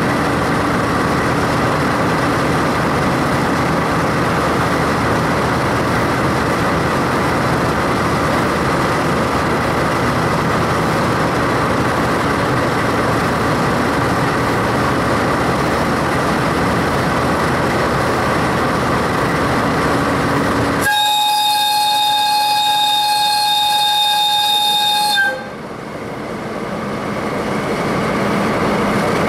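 JNR DD51 diesel-hydraulic locomotive, with twin V12 diesel engines, running steadily as it stands. About three-quarters of the way through, its whistle sounds one long, loud blast of about four seconds that cuts off sharply.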